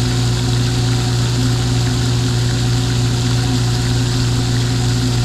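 Steady low electric-motor hum under a constant hiss of splashing water from a pond's aerating fountain.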